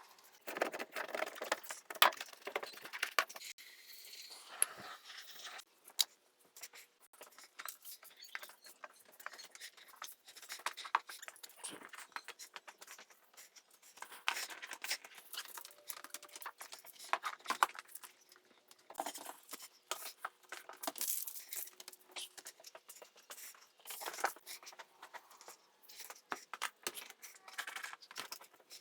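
Hands-on work noise: a steady run of irregular clicks, rustles and scrapes, as of parts and materials being handled and fitted, with no motor running.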